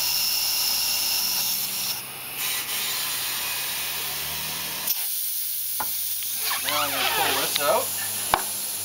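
Compressed air hissing steadily through an air chuck into a tire's valve stem with the valve core removed, inflating the tire to seat its bead on the rim; the hiss dips briefly about two seconds in and cuts off sharply about five seconds in.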